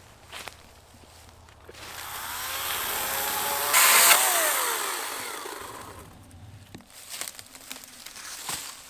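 Chainsaw revving up, cutting hard for a moment, then winding back down. It swells over about two seconds, is loudest briefly about four seconds in, and fades out by six. Scattered snaps and knocks follow.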